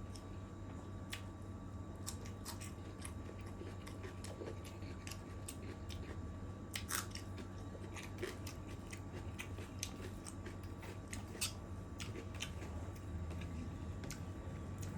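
Close-miked eating of chicken curry with rice: irregular wet mouth clicks and smacks while chewing, the sharpest about seven and eleven seconds in.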